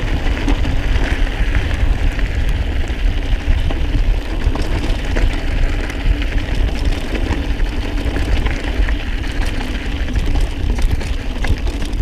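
Mountain bike rolling over a loose, stony dirt trail: the tubeless tyres crunch on gravel and the bike makes many small clicks and rattles, over a steady low rumble of wind buffeting the microphone.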